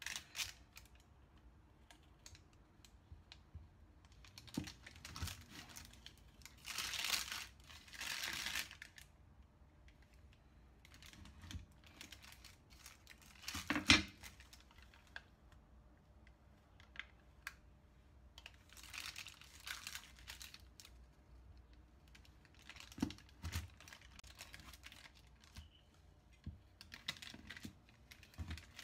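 A knife cutting a slab of dodol on baking paper over a wooden cutting board: the paper crinkles in a few short spells, the blade gives small scattered clicks and taps, and one sharp knock comes about halfway through.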